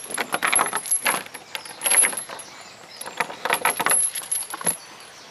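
Metal chain on a wooden gate rattling and clinking as it is handled by hand: a run of jangling for about two seconds, a short pause, then a second shorter burst.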